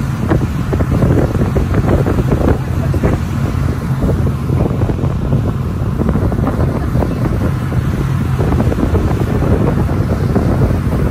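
Wind buffeting the microphone over the steady low drone of a sightseeing boat's engine.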